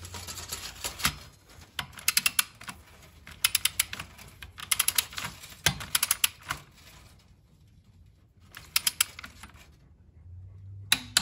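Ratcheting torque wrench tightening a motorcycle's oil drain plug on a new crush washer. About six short bursts of fast ratchet clicks as the handle is worked back and forth, with one single louder click near the middle.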